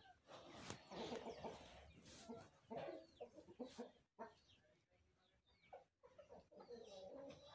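Backyard poultry, chickens and turkeys, clucking and calling on and off in short bursts, with some thin high falling chirps.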